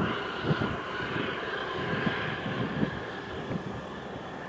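Wind buffeting the microphone in low gusts over a steady rushing hiss, easing off over the few seconds.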